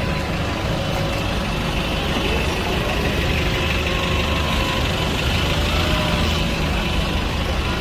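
Steady low rumble of a heavy road vehicle's engine running, amid street traffic.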